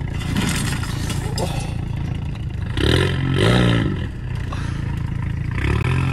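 Lowered VW Golf GTI reversing down a steep driveway: its engine running while the rear end scrapes and grinds on the pavement. The sound swells twice, about three seconds in and again near the end.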